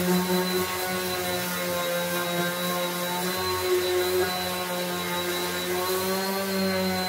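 Electric random orbital sander running steadily while sanding the wooden blade of a cricket bat, its motor hum wavering slightly in pitch as the sander is pressed and moved over the wood.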